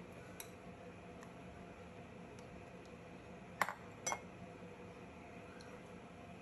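Two sharp clinks against a white ceramic bowl, about half a second apart, as ice cream mixture is scraped into it with a metal-handled silicone spatula. A few faint ticks come before them.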